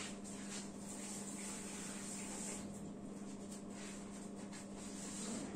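Faint rustling and light knocks from someone moving about and fetching something out of view, over a steady low hum.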